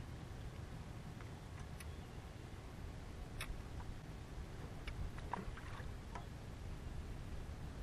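Light clicks and taps of fishing rod and reel handling as a rod is cast and worked. They come a few at a time, most between about five and six seconds in, over a low steady rumble.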